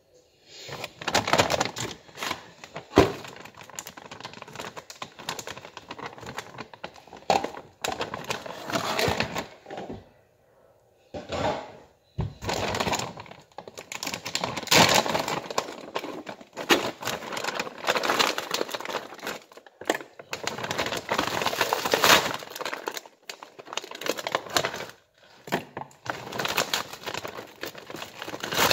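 A plastic food bag crinkling and rustling as it is handled, in bursts of a few seconds with short pauses, with a sharp knock about three seconds in.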